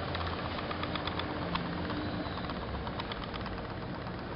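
Homemade pop-pop steam boat engine running, giving an uneven stream of quick sharp pops over a steady hiss.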